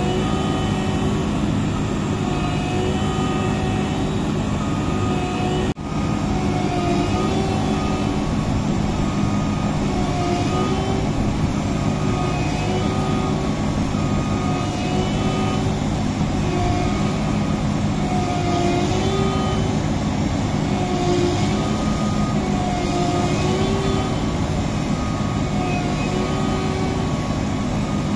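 Massey Ferguson CS6050 tracked rice combine harvester running steadily under load, its engine drone overlaid by a wavering whine, as it works to pull itself out of deep mud. The sound drops out briefly about six seconds in.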